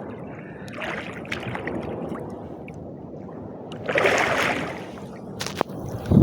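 Seawater sloshing and splashing around a swimmer, with a louder splash about four seconds in and a few sharp clicks near the end.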